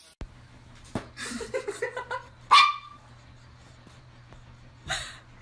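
Small dog giving a string of short, high yips, then one sharp, loud bark about two and a half seconds in, and a brief yelp near the end.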